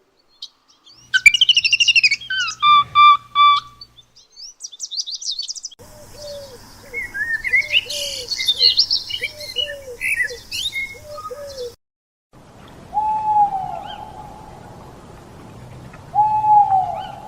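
Birds calling and singing in a run of short clips cut one after another: quick twittering chirps, then repeated short down-slurred notes under higher chirping, then a longer falling whistle heard twice.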